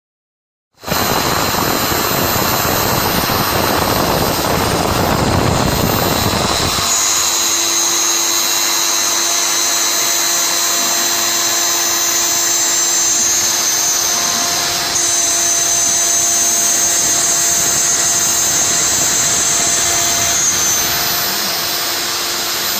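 Three-axis CNC milling machine running and cutting. It starts abruptly about a second in with a loud, broad rush. From about seven seconds it settles into a steady sound with a high spindle whine.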